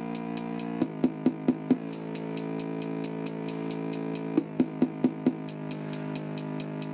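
Electronic dance music played through the built-in speaker of a 2000 Orion VHS/CRT TV combo: fast, steady hi-hat ticks over held synth chords, with a short run of drum hits about a second in and another just past the middle. Almost no deep bass comes through.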